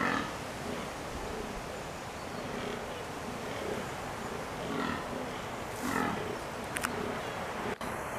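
Fallow deer buck groaning in the rut: short calls, one at the start and two more about five and six seconds in.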